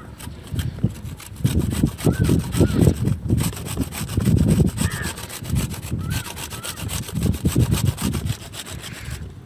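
Food being grated on a handheld grater: rapid scraping strokes in several bursts.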